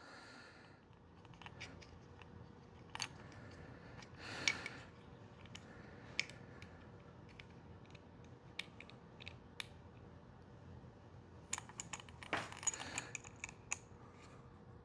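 Small clicks and scrapes of a Glock magazine and its add-on extension base being handled and pushed together by hand, the extension working over the magazine's locking lugs. Scattered light clicks, a brief rustle about a third of the way in, and a quicker run of clicks near the end.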